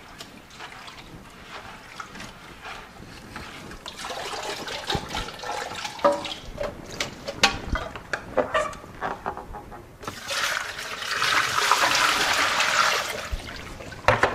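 Water sloshing and splashing in a plastic bucket as seeds are swished by hand in a mesh bag, then rinse water poured out of the bucket in a steady rush for about three seconds from ten seconds in.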